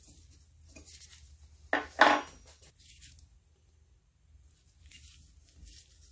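Two sharp metal clinks in quick succession about two seconds in, from steel tools or parts being handled at a lathe during gear-cutting setup, followed by faint handling noise.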